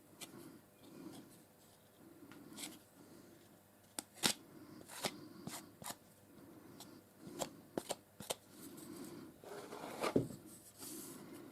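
Hands working filler into a repair and fitting clamps: scattered light clicks, small knocks and rustling, with a sharper knock about four seconds in and again near ten seconds.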